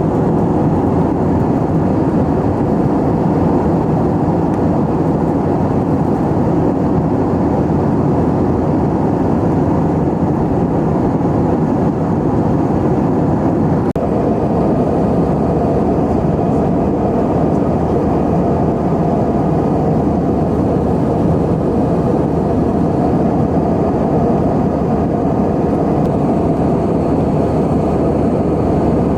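Steady cabin noise inside an Airbus A320-232 in flight: the rush of its IAE V2500 engines and the airflow past the fuselage, holding level, with one faint tick about halfway through.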